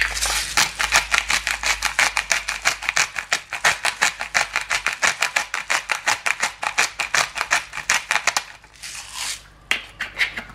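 Hand-twisted pepper grinder crushing black peppercorns: a fast, even run of crisp clicks, about six or seven a second, for some eight seconds, then a couple of short turns near the end.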